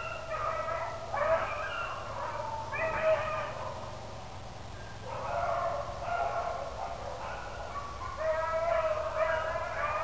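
Two hound dogs baying in repeated bursts while running a rabbit, with a short lull in the middle.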